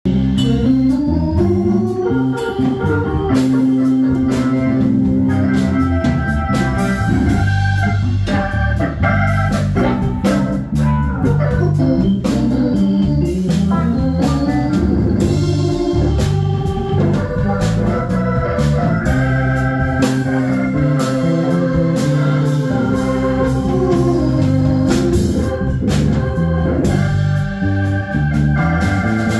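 Live band playing: a Hammond-style organ sound holds long chords over moving bass notes, with electric guitar and a steady run of drum-kit hits.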